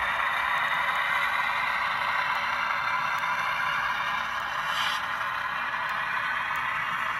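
Model freight train rolling past on its track: a steady mechanical rolling noise from wheels and running gear on the rails, with faint light clicks.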